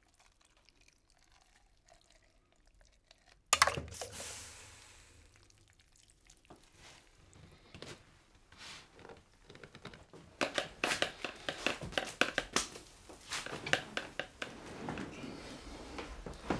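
A sudden loud splash into a pot of water about three and a half seconds in, fading over a second or so. From about ten seconds on comes a dense run of crinkling and crackling, like wrapping being handled.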